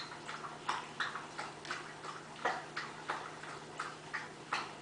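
Paintbrushes dabbing and tapping against a wooden birdhouse, a quick, slightly irregular series of light ticks, about three a second.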